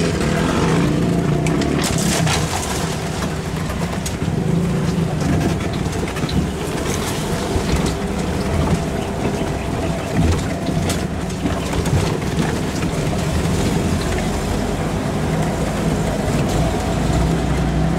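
Small vehicle engine running steadily while under way over rough ground, with scattered knocks and crunches.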